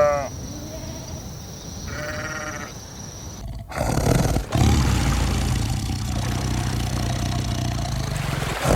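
Bleating: a loud call ends right at the start, then two fainter bleats follow within the first three seconds. After a sudden cut, a steady, louder noisy rumble with a low hum takes over.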